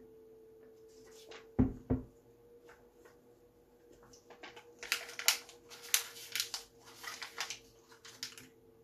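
Two knocks as a plastic shaker bottle is set down, then a sheet of printed paper crinkling in quick runs as it is folded and handled before it goes into the mouth. A steady faint hum lies underneath.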